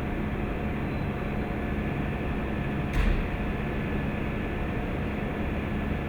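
Excavator running steadily with a constant mechanical hum, and one sharp knock about halfway through.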